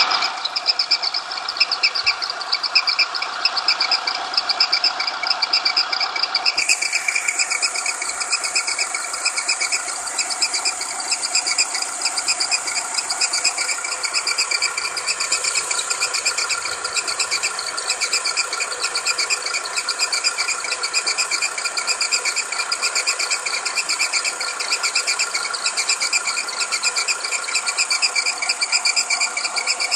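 VW CGGA 1.4 petrol engine running cold, with a steady high whistle from the timing drive over a fast, even mechanical ticking. The owner says the whistle appears when the engine is cold and goes away once it warms up.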